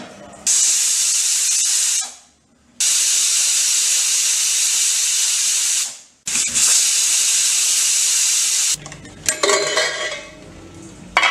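Weighted-valve pressure cooker whistling three times: three loud, steady blasts of hissing steam, each starting and stopping abruptly, marking the three whistles the cooking calls for. Then metal clatter as the cooker is handled and its lid opened.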